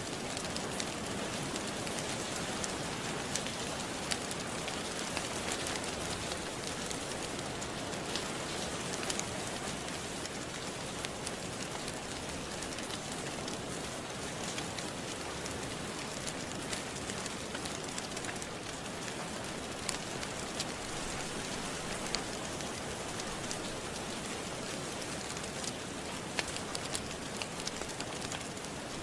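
Steady, even rain, with scattered small sharp crackles and pops from a wood fire.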